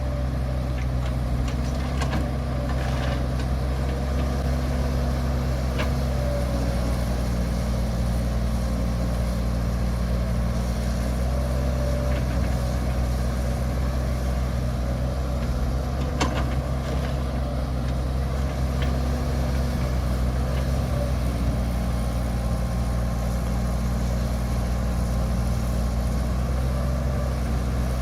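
Heavy earth-moving machine's engine running steadily at low revs, with a few faint clicks or knocks over it.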